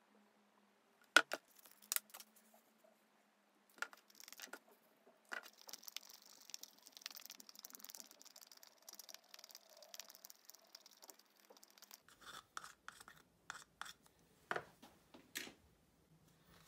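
A wooden stick stirring polyester resin in a small plastic cup, a faint scratchy scraping in the middle, among scattered light clicks and taps, the sharpest about a second in.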